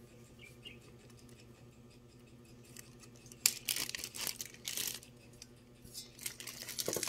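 Thin plastic bag crinkling and rustling in several short bursts as it is handled and opened, starting about halfway through. Before that, only quiet room tone with a faint low hum.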